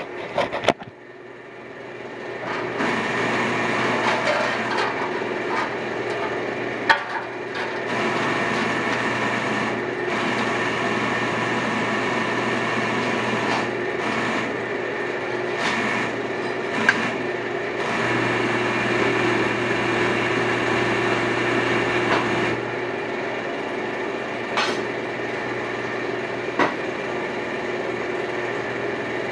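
A shop machine starts up over the first couple of seconds and then runs steadily with a hum, with a few sharp clicks and knocks on top.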